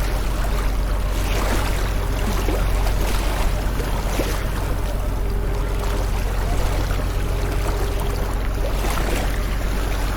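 Sea waves washing in a continuous rush over a deep low rumble, with a few brief splashes through it.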